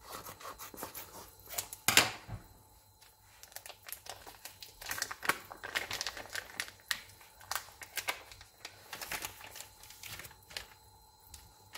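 Plastic bacon packaging crinkling and tearing as it is cut and pulled open: a run of irregular sharp crackles, the loudest about two seconds in.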